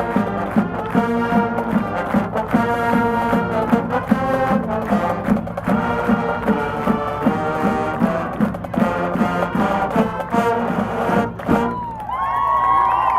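Marching band brass playing a rhythmic, repeated-chord passage with drums, stopping about a second before the end. Then a crowd cheers and shouts.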